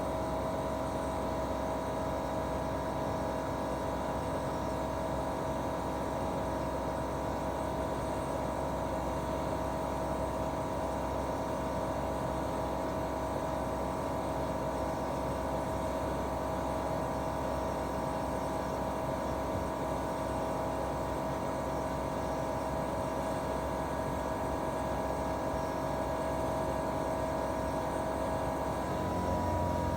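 Daikin R28RMV mini-split outdoor unit running in heating mode: its twin-cylinder swing compressor and fan give a steady hum with two clear steady tones over a broad rush. Near the end the tones begin to rise as the inverter compressor speeds up.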